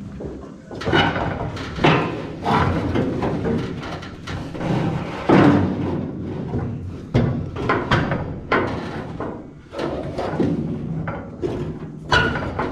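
A series of irregular metal clunks and thuds as a replacement sheet-metal floor panel is shoved and knocked into place in a squarebody truck cab, with no steady rhythm.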